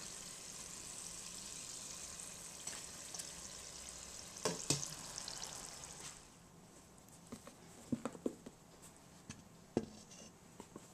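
Crinkle-cut fries deep-frying in hot oil, a steady sizzle, with two sharp clinks of the slotted spoon against the pot about four and a half seconds in. The sizzle stops suddenly about six seconds in, and a few light knocks and taps follow.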